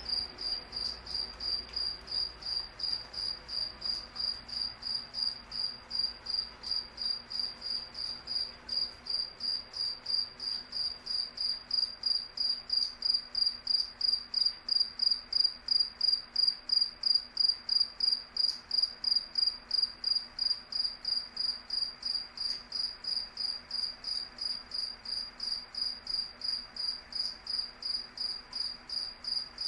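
Cricket chirping steadily, a high-pitched chirp repeating evenly about three times a second, a little louder through the middle.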